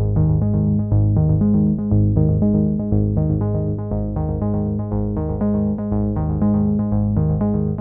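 Electronic background music: quick, evenly repeating synthesizer notes over a bass line that steps about every half second.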